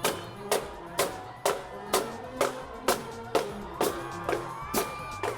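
Music with a steady drum beat, about two strikes a second, and held pitched instrument notes between the beats.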